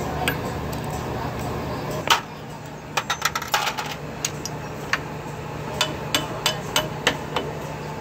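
A string of sharp metal clicks and clinks, irregular at first and then about three a second, from steel parts being handled and fitted at the rod end of a hydraulic cylinder held in a vise.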